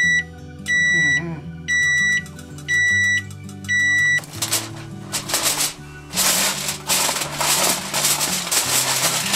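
Electric range oven timer beeping five times, about once a second, on reaching 0:00: the set cooking time is up. Then aluminum foil crinkling as the foil cover is pulled back from the baking pan.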